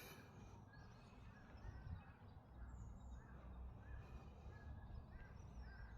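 Faint birdsong: birds giving short chirps again and again, over a low rumble of wind on the microphone.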